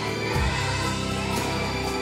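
A children's choir singing with instrumental accompaniment.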